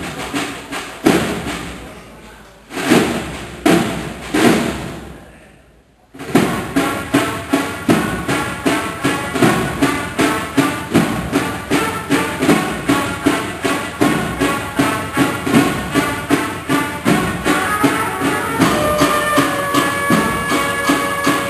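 Cornet-and-drum band (banda de cornetas y tambores) playing a processional march. It opens with a few separate heavy drum strokes and a brief pause, then the drums settle into a steady, even rhythm, and the cornets come in with held notes about four seconds before the end.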